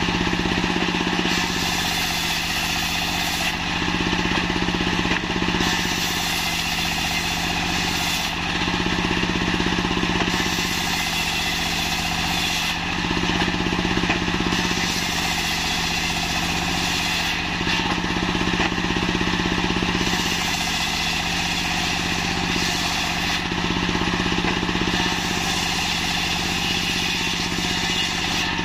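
Single-cylinder diesel engine running steadily, driving a circular saw bench whose blade rips a log into planks. The brighter cutting noise comes and goes every few seconds as the wood is fed through.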